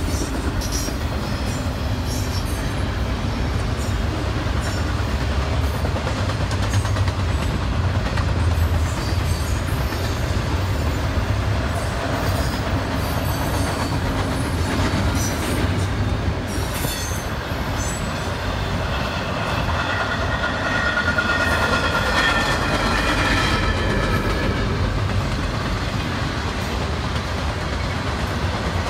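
Cars of a double-stack intermodal freight train rolling past with a steady low rumble and wheels clicking over rail joints. About twenty seconds in, a high wheel squeal rises over it for several seconds.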